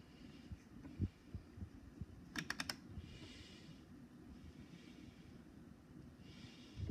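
Faint scattered low thumps and rustle, with a quick run of four sharp clicks about two and a half seconds in and two short soft hisses.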